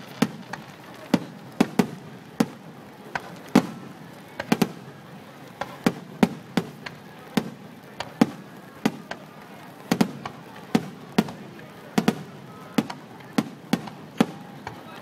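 Fireworks finale: aerial shells bursting in quick, irregular succession, a steady string of sharp bangs and cracks about two to three a second.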